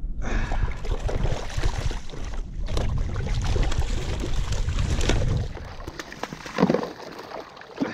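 Large lingcod thrashing and splashing at the side of a kayak while held on a lip-grip, strong enough to rock the kayak. The splashing runs for about five seconds, then dies down.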